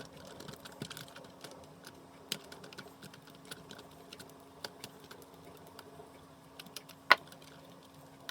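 Screwdriver backing out the screw that holds the battery in a Dyson V6 stick vacuum: a run of light, irregular clicks and scrapes of metal on screw and plastic, with one sharper click about seven seconds in.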